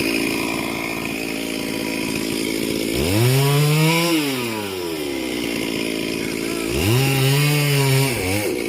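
Two-stroke chainsaw revved twice: the engine note climbs sharply and drops back about three seconds in, then again near the end.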